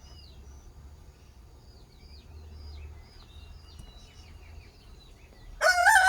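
Small birds chirping, with many short, quick falling calls. Near the end, a rooster starts a loud, long crow that drowns them out.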